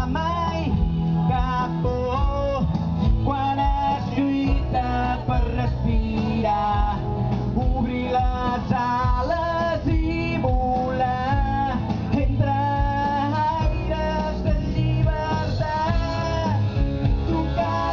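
A man singing a Catalan song into a microphone over instrumental backing music.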